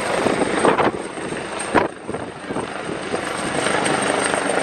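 Military helicopter flying close by, its rotor and engine noise mixed into a loud, steady rushing noise, with irregular gusts and knocks, the strongest about two seconds in.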